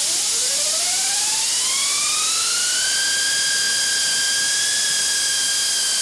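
Small turbine driven by compressed nitrogen gas at about 10 bar: a loud, steady gas hiss with a whine that climbs in pitch over the first three seconds as the turbine spins up, then holds steady. The hiss and whine cut off suddenly near the end.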